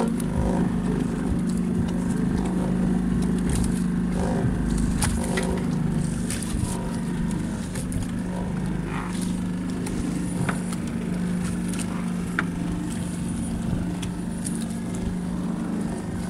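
Small boat's engine running steadily at low speed, with scattered light knocks.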